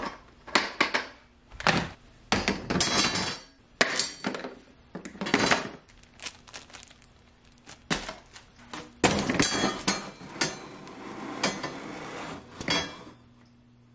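Tools and supplies set down one by one on a plastic bucket and a wood floor: an uneven run of knocks, clinks and clatters from a wire bucket handle, a hot glue gun and a metal framing square.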